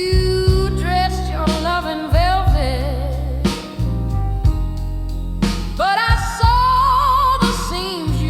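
Slow blues music: a wavering melody line bending between notes, with vibrato, over a steady low bass accompaniment.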